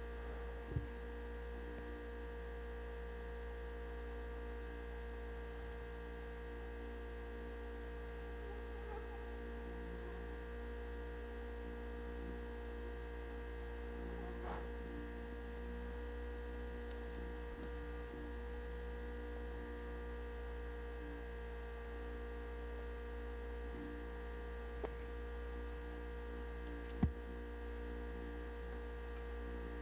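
Steady electrical hum: a low drone with several fixed tones above it, broken by a few sharp clicks, the loudest near the end.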